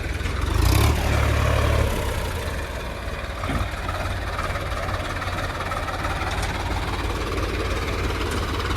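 JCB 3DX backhoe loader's diesel engine running. It surges louder for about a second near the start, then settles back to a steady rumble, with a single clank about three and a half seconds in.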